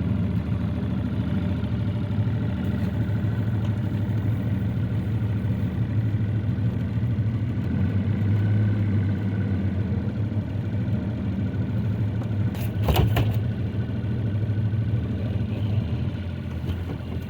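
Boat's outboard motor running steadily at low speed, with a few sharp knocks about 13 seconds in.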